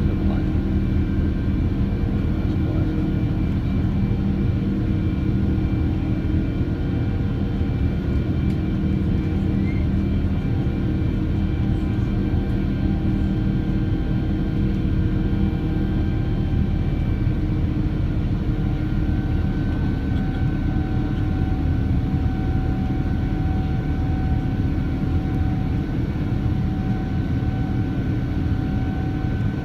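Boeing 787-9's Rolls-Royce Trent 1000 jet engines running steadily at high power: a loud, even rush of noise with several steady whining tones over it.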